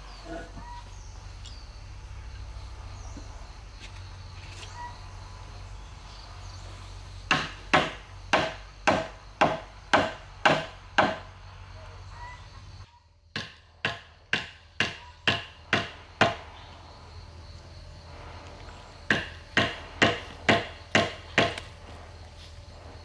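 Blows of a tool on wood, about two a second, in three runs of six to eight strikes with pauses between.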